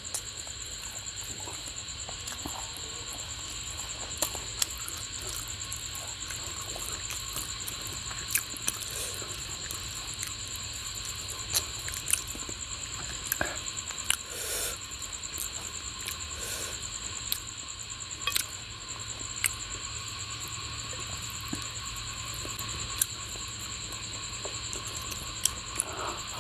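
Hand-eating sounds: fingers squishing curry-soaked rice and fish, and chewing, heard as scattered short clicks and soft wet noises. A steady high-pitched insect chirring runs underneath.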